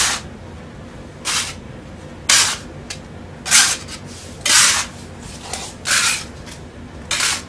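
Metal putty knife scraping across a terrazzo floor as it stirs a dry heap of wall putty and plaster of Paris powder: seven short scrapes, about one a second.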